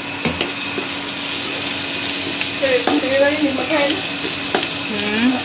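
Food sizzling in a hot pan while it is stirred, with scattered clicks and scrapes of the spoon against the pan.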